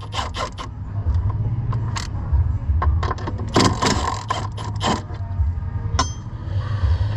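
Bursts of quick metallic clicking, like a ratchet working a bolt, in three or four clusters, with a single sharp click about six seconds in, over a steady low hum.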